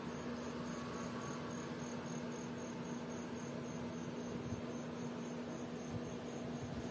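A cricket chirping in an even rhythm, about four short high chirps a second, over a low steady hum.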